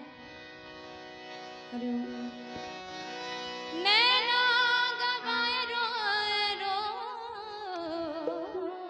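Harmonium playing steady held notes, then about four seconds in a woman begins singing a bhajan: one long phrase with a wavering, ornamented pitch that falls away near the end.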